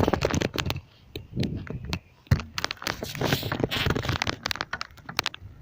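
Irregular rustling, scraping and clicking handling noise, with one sharp knock about two seconds in.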